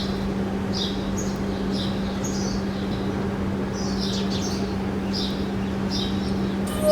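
Small birds chirping: short high calls, a few each second, over a steady low hum.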